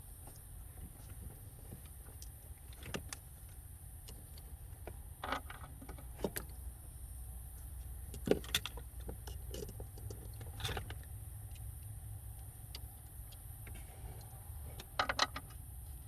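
Scattered metallic clicks and clinks of hand tools: sockets and a wrench being fitted and tried on a bolt, over a steady low rumble.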